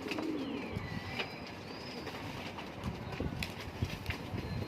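Domestic pigeons cooing in a loft, low and wavering.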